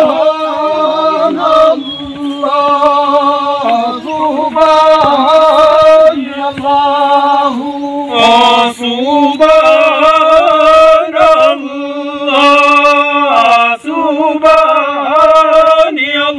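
Men singing a devotional chant in phrases of one to two seconds, with long held, wavering notes and short breaks between phrases.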